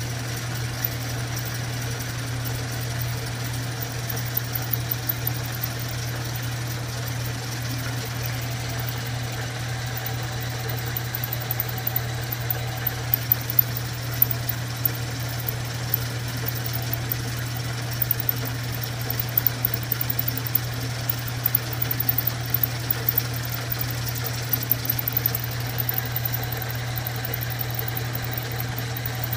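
Vertical milling machine running in high speed with a 3/8-inch drill boring out a broken steel stud: a steady motor hum with a scatter of small sharp ticks from the cut, more frequent from about twelve seconds in.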